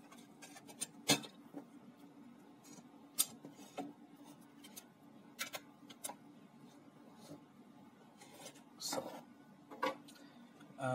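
Scattered clicks and light knocks as the plastic casing and parts of an opened portable CD player are handled and set down on a wooden table, over a steady low hum.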